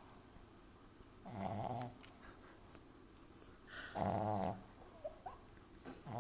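French bulldog puppy snoring loudly in its sleep: two long snores about two and a half seconds apart, with a third beginning at the very end.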